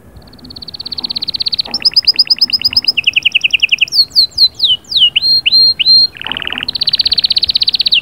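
Domestic canary singing a long, loud song made of a string of different phrases. Fast rolling trills and rapidly repeated notes build up over the first two seconds, a run of falling whistled notes comes in the middle, and a lower, harsher phrase near the end gives way to another fast trill.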